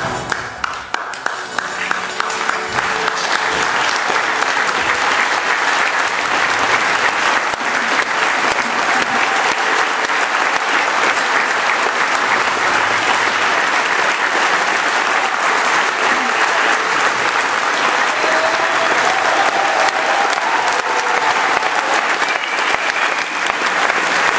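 Audience applauding steadily, with a few sharp claps close to the microphone in the first second or two.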